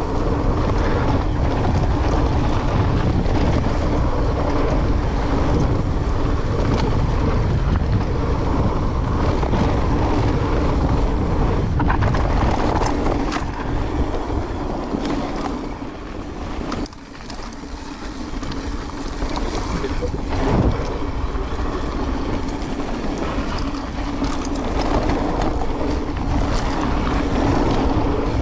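Rushing wind on the microphone and rattling of a fast ride down a rough trail, with a steady hum and scattered knocks and clatters. The noise eases for a moment past the middle, then a sharper knock follows.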